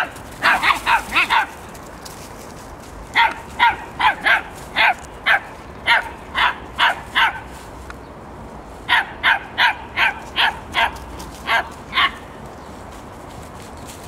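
A dog barking in three runs of short, sharp barks, about two a second, with pauses of a couple of seconds between the runs.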